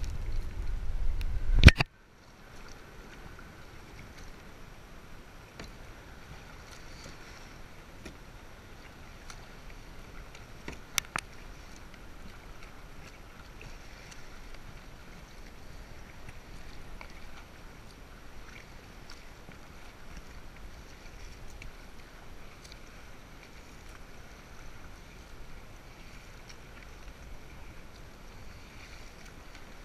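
Paddling a sit-on-top kayak through choppy water: paddle strokes and water sloshing against the hull, a steady quiet wash. A loud, low rumble for the first two seconds cuts off suddenly, and there is a sharp click about eleven seconds in.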